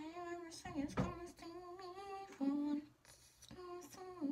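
A woman humming a tune to herself in long held notes, two phrases with a short pause about three seconds in.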